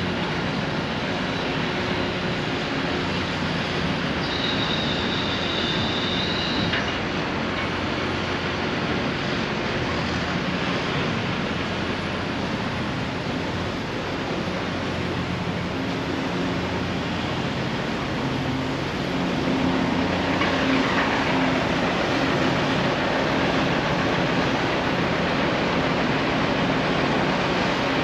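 Steady mechanical noise of a busy city street and construction site, with a constant low hum from machinery or traffic. A high whine comes in about four seconds in and lasts a few seconds, and the noise grows somewhat louder from about twenty seconds on.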